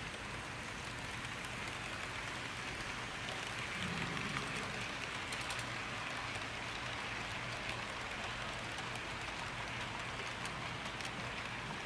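Steady even hiss with a faint low hum underneath, swelling slightly about four seconds in.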